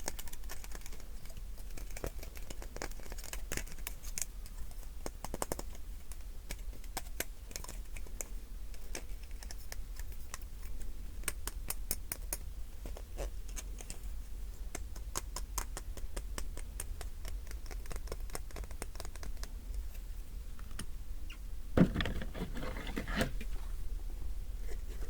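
Quick, light clicking and tapping on a hard object, irregular in rhythm, with one louder knock and a moment of handling noise near the end.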